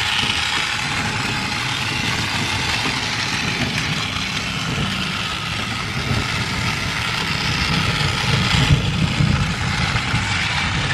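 Battery-powered toy trains running on plastic track: small electric motors whirring with wheels rattling over the track joints in a steady run. The low rattle grows louder about eight seconds in as the red Tokyo Metro Marunouchi toy train passes close.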